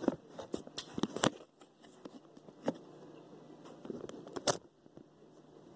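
Handling noise close to the microphone: a few sharp clicks and knocks, the loudest about a second in and again near the end, over faint rustling and crunching.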